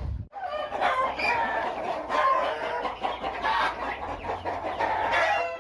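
A flock of country chickens clucking and calling, many short overlapping calls.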